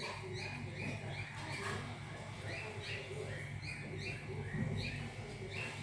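A young kitten crying with short, high-pitched mews, repeated a few times a second, as a hungry kitten does. A steady low hum runs underneath.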